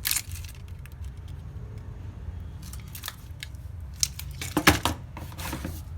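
Clicks and light rattles of a laptop battery pack and its cells being handled and pulled apart, with a steady low hum underneath. The sharpest click comes about three-quarters of the way through.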